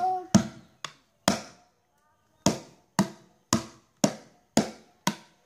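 A stick beating a plastic paint bucket like a drum: nine sharp hits, three quick ones, then after a short pause six more at an even beat of about two a second.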